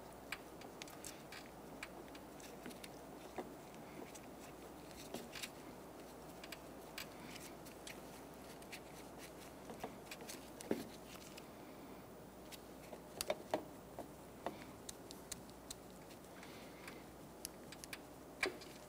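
Faint, irregular light clicks and taps from rubber coolant hoses, a plastic reservoir cap fitting and metal hose pliers being handled as the hoses are twisted off. A few sharper clicks come about halfway through and near the end.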